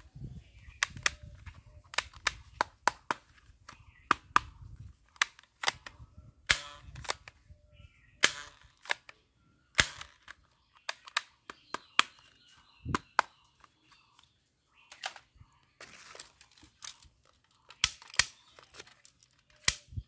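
Sharp, irregular plastic clicks and clacks from toy guns being handled: the moving parts of a plastic toy pistol, then the pieces of a camouflage toy rifle snapping together.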